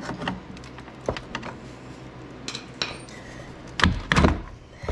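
Metal clinks and knocks of a snowmobile's Diamond Drive gearbox housing being worked loose by hand off its mounting studs, with a few heavier knocks about four seconds in.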